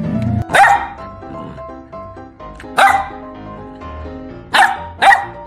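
Golden retriever puppy barking four times in short, sharp barks, the last two close together, over background music.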